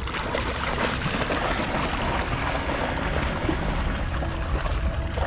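Water splashing and rushing, a steady grainy wash with no clear single events.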